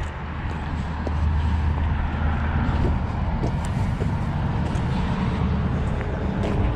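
A car engine running close by, a steady low hum that swells about a second in.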